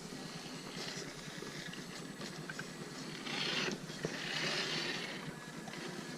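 Axial SCX10 II RC crawler driving through mud and over rocks: a scraping, splashing hiss that swells twice in the middle, with a faint steady tone now and then.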